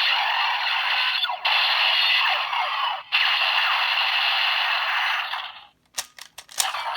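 Electronic sound effects from a DX Break Gunner toy's small built-in speaker: a long, tinny blast effect, its execution finisher for the Funky Spike shift car, with two brief breaks, fading out about five and a half seconds in. A few sharp clicks from handling the toy follow near the end.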